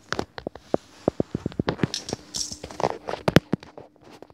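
Irregular knocks, taps and rustles of a phone being handled and swung about, with a faint steady hum coming in about halfway through.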